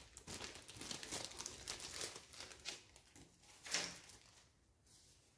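Clear plastic zip bag crinkling as it is handled and opened, irregular crackles with the loudest a little before four seconds in, dying away after about four and a half seconds.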